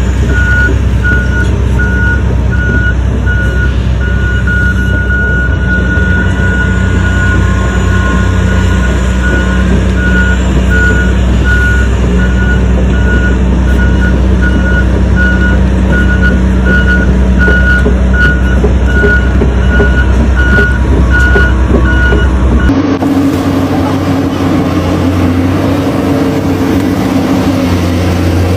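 Reversing beeper of an RC dump truck beeping about once a second over a steady low engine-like drone; about 23 s in the beeping stops and the drone changes to a higher rumble.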